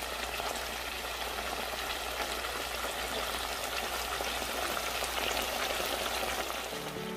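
Sliced smoked duck frying in oil with onion and garlic in a pan: a steady sizzle with fine crackling.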